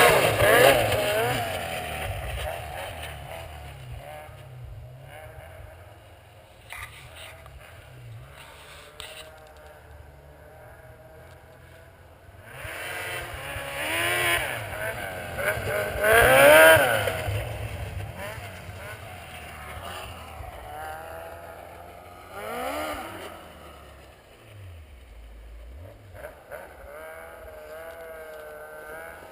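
2007 Yamaha Apex MTX snowmobile's four-cylinder four-stroke engine with an aftermarket exhaust, revving in rising and falling sweeps as the sled passes by and fades away. It comes back louder, peaking about two-thirds of the way through, then gives a shorter rev near the end.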